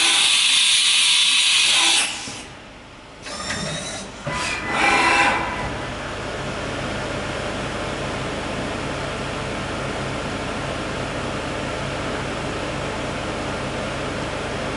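Mikron-Haas VCE500 CNC machining center in operation. A loud hiss lasts about two seconds, a few short mechanical noises follow, then the machine settles into a steady running hum.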